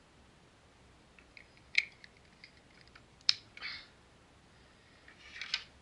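Hard plastic parts of a Transformers figure clicking and snapping as a plastic rifle accessory is fitted into its hand. There are two sharp clicks about a second and a half apart, lighter ticks of handling, and a brushing scrape with a click near the end.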